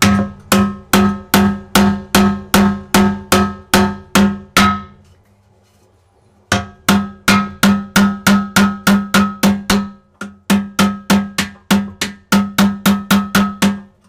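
Hammer blows on a steel chisel chipping at an aquarium's glass: a loud, even series of ringing metal strikes, about two and a half a second. After a pause of about a second and a half, they resume quicker, about three a second.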